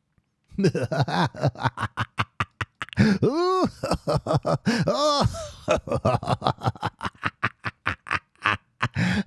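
A man performing an evil clown laugh: rapid cackling bursts, several a second, starting about half a second in, with two drawn-out high whoops that rise and fall in pitch in the middle.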